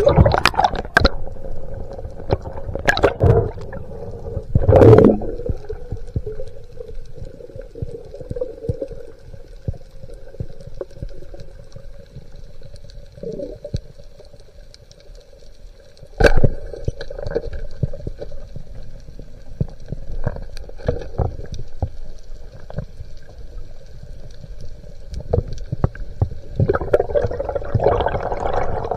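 Underwater sound picked up by a diver's camera: water movement and bubbling over a faint steady hum, broken by several sharp knocks, the loudest about five seconds in and another about sixteen seconds in. Near the end the water noise swells as the diver rises toward the surface.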